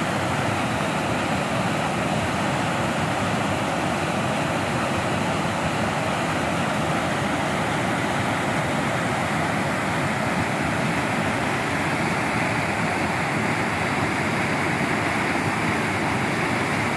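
River rapids: fast whitewater rushing and churning over rocks, a steady, loud, unbroken rush of water.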